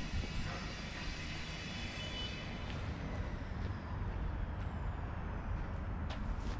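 Low rumble of street traffic, with a high steady whine that fades out over the first half and a short hiss near the end.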